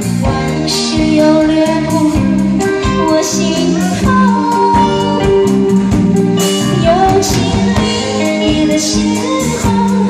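Live band playing a pop song on electric guitars, keyboard and drums, with a melody line that slides between notes over a steady drum beat.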